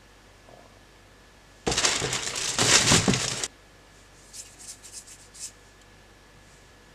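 Small whole potatoes tumbling into a clear plastic tub: a dense clatter of knocks lasting nearly two seconds that stops abruptly. Afterwards come a few faint light taps and rubs of hands on the potatoes.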